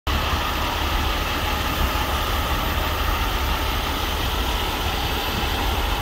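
Steady low rumble of a heavy diesel truck engine idling: the Cummins ISX in a Peterbilt 389X rotator tow truck.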